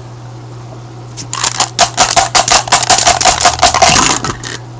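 Three dice being shaken and rolled: a quick run of rattling clicks that starts about a second in and lasts about three seconds.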